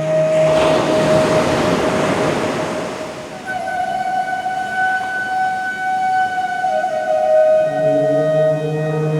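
An ocean wave washes in and recedes over held drone tones during the first three seconds. A long held flute note follows, dropping slightly in pitch about 7 s in, and the low sung "Om" drone of the mantra comes back in near the end.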